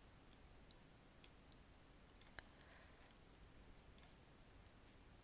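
Near silence with faint, scattered computer mouse clicks, one a little louder about two and a half seconds in.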